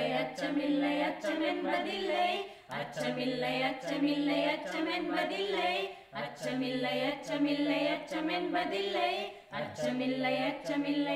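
A group of singers, women's voices to the fore, singing a cappella in unison, in phrases of about three seconds with short breaths between them.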